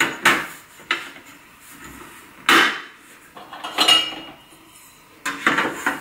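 Steel rails and side panel of an IKEA Helmer drawer cabinet knocking together as the rails are fitted and clicked into place: a series of sharp metallic clanks and clicks, the loudest about two and a half seconds in, with a cluster of quicker ones near the end.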